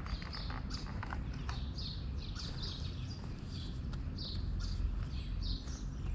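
Small birds chirping repeatedly at a feeding spot, short high calls coming several times a second, over a steady low rumble. A few sharp clicks come in the first second and a half.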